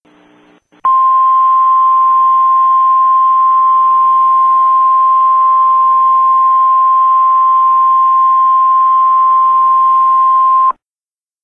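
Emergency Alert System attention tone: a single steady, loud, high-pitched tone that starts about a second in, holds for nearly ten seconds and cuts off suddenly. It is the alarm that signals an emergency voice message is about to follow.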